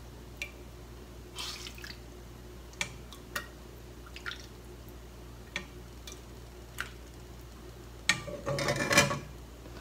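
Clear soup being ladled from a saucepan into a bowl: scattered drips and small clicks, then a longer splashing pour into the bowl about eight seconds in.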